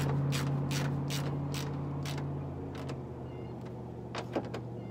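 A passing truck's engine drone, fading away, under a run of sharp ratcheting clicks, about two or three a second, that thin out after about two seconds: a hand tool tightening a fender-flare fastener.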